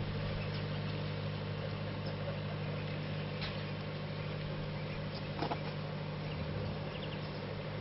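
An engine idling with a steady low hum, with a couple of faint clicks about three and a half and five and a half seconds in.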